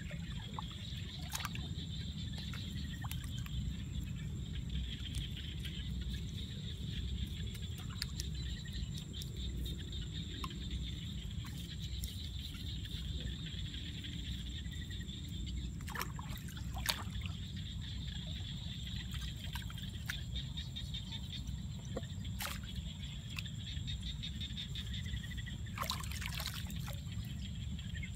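Shallow water trickling and splashing as hands scoop and pack wet mud around a bamboo fish trap, with scattered sharp splashes and slaps, over a steady low rumble.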